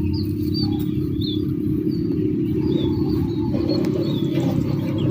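Birds chirping in short, repeated high notes over a loud, steady low rumble.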